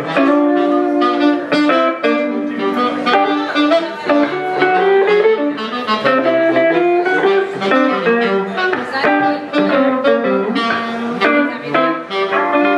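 Saxophone and archtop guitar playing a tune together live, with a run of melodic saxophone notes over the guitar's chords.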